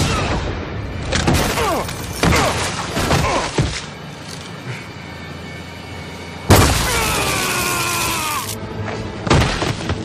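Cartoon fight soundtrack: music with sound effects, several falling swishes and hits in the first few seconds, then a sudden loud blast about six and a half seconds in, trailing a falling whine for about two seconds, and another hit near the end.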